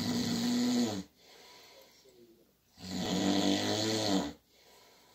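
A sleeping man snoring: two long, loud snores about three seconds apart, each lasting a second or more, with quieter breathing between them.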